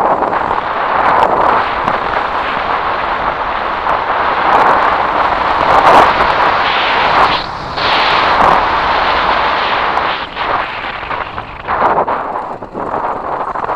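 Kawasaki KLR 650 single-cylinder engine running as the bike rides a gravel track, mixed with wind rush on the camera microphone. The noise eases briefly about seven and a half seconds in and again near the end.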